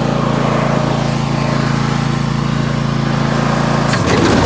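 Zero-turn riding mower engine running steadily. About four seconds in there are a few clicks, the engine note dips and settles at a new steady pitch as the mower blades are switched on and load the engine.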